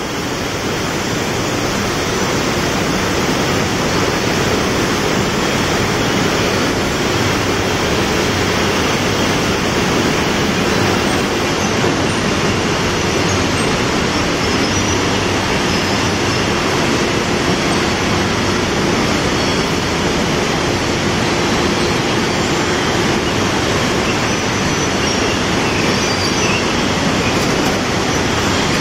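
Loud, steady machinery noise of a glass bottle production line: an even din with no breaks, with a faint steady tone running through it.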